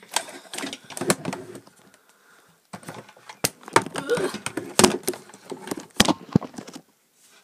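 Rustling, scraping and knocking of a phone being handled and propped up close to its own microphone. It comes in two bouts with a lull of about a second between them, and there are several sharp knocks in the second bout.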